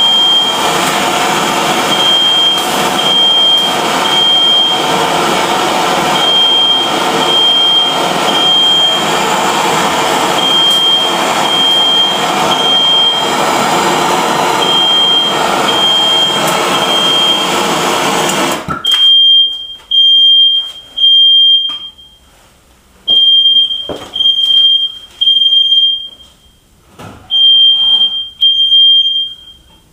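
MAP gas torch flame hissing steadily while a smoke alarm beeps over it; about two-thirds of the way through the torch shuts off, leaving the alarm's high beeps sounding alone in groups of three.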